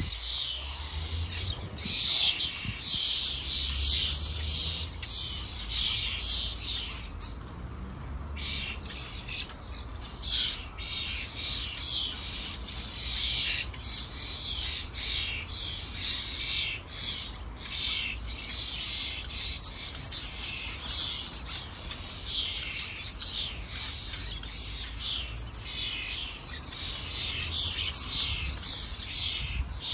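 Small garden songbirds chirping and singing, many short, high falling notes overlapping, with a low rumble underneath.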